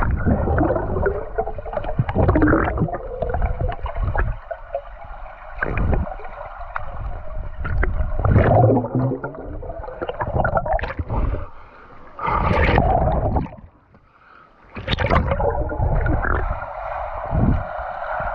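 Underwater sound picked up by a camera held below the surface: muffled water rushing and gurgling in irregular surges, with low rumble. It drops away briefly about two-thirds of the way through.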